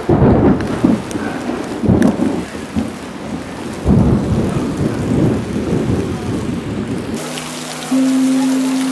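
Thunder rumbling in several loud surges over steady rain. A little after seven seconds the thunder stops and a steady low hum continues with the rain.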